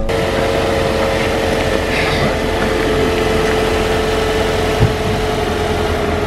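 Car engine idling steadily, with a steady whine running over it and one brief knock a little before five seconds in.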